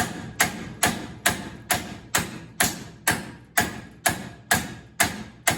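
Hammer blows on the steel of a tractor's steering ball joint end, struck in a steady rhythm of a little more than two a second to drive the tapered stud out of its arm. Each blow is sharp and rings briefly.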